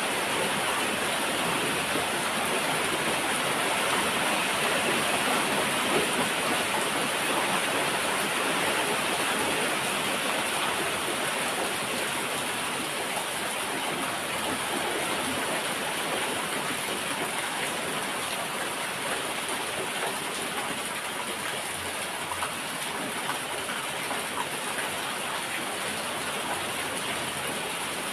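Steady rainfall, a dense even hiss of rain with faint scattered drop ticks.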